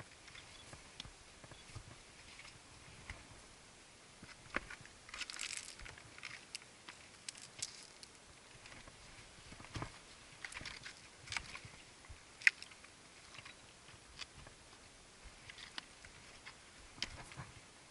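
Hiking boots stepping over broken rock and loose scree: irregular faint crunches, short scrapes and sharp clicks of stone on stone, one click past the middle standing out.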